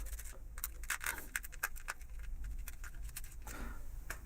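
Small irregular clicks and short scrapes of a screwdriver working the screws on the housing of a magnetic starter (contactor), with parts being handled.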